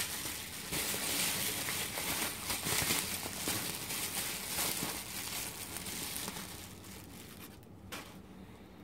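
Plastic bubble wrap crinkling and rustling as hands unwrap it, the crinkling dying down over the last two seconds, with one small sharp click near the end.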